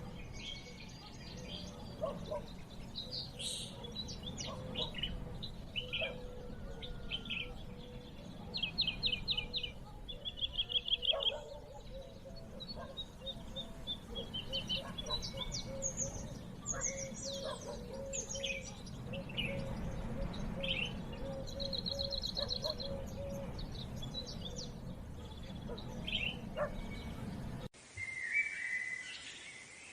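Several birds chirping and calling over a steady low rumble, with quick trilled runs of notes about nine and eleven seconds in. Near the end the sound cuts abruptly to a thinner recording.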